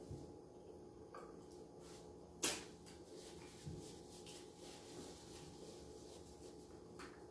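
Quiet eating and food-handling noises over a faint steady hum, with a few small ticks and one sharp clack about two and a half seconds in.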